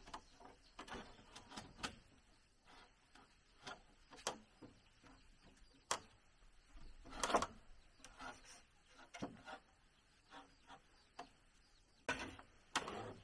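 Scattered, irregular knocks, taps and scrapes of hand work with wood and tools, with a louder clatter around the middle and again near the end.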